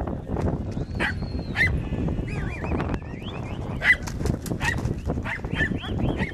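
Barbucho sheepdogs barking in short, repeated barks while working a flock of sheep, over a steady low rumble of movement. A brief high warbling call comes in about two and a half seconds in.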